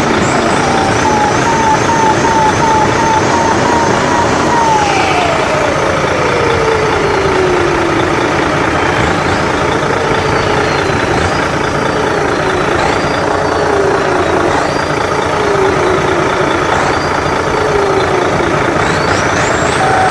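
Big RC truck's sound system giving a steady, loud rushing 'jet turbo' noise with electronic siren-like tones over it. A pulsing tone at first slides into a long falling wail about four seconds in, then comes a run of short falling wails about every second and a half, and a quick rising sweep near the end.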